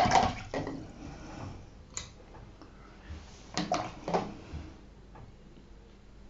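A paintbrush being rinsed in a water pot: the swishing dies away in the first half-second, then the brush clinks and taps against the pot a few times, loudest about three and a half to four seconds in.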